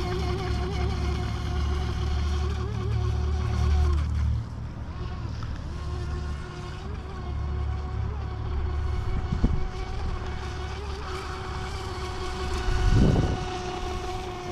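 Brushless electric motor of a DEERC RC speedboat whining as the boat runs across the water, the pitch wavering slightly and dropping away about four seconds in before coming back. Wind rumbles on the microphone throughout, with a short low buffet near the end.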